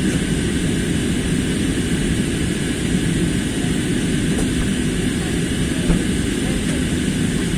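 Steady cabin noise of an Airbus A320-family airliner in descent: a deep engine and airflow rumble heard from a window seat. There is a small knock about six seconds in.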